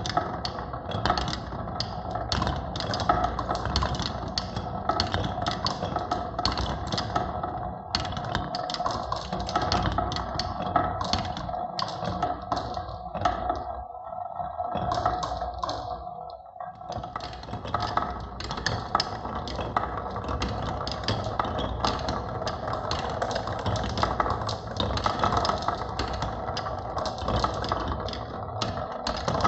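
Many marbles rolling and clattering down a wooden HABA marble run, a dense stream of quick clicks and clacks that thins out briefly about halfway through.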